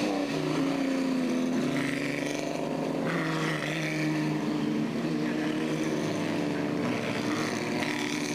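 Engines of several vintage racing cars running hard as they pass one after another, their notes overlapping and sliding up and down in pitch.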